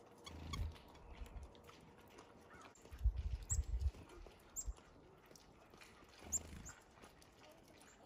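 Small songbirds (chickadees and nuthatches) at a feeder giving short high chips a few times. Low dull thumps and rumbles come and go, the loudest cluster about three seconds in.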